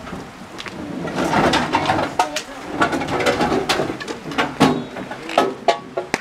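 Dry sticks cracking and knocking as they are snapped and dropped into a metal fire pit: a quick irregular run of sharp cracks and clatters.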